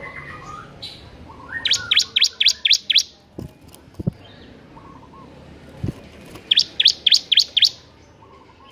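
Caged bar-winged prinia (ciblek) singing two quick bursts of about six loud, sharp notes each. Each note sweeps down quickly, about five to the second, with the first burst about two seconds in and the second near the end. A few soft low thumps fall between the bursts.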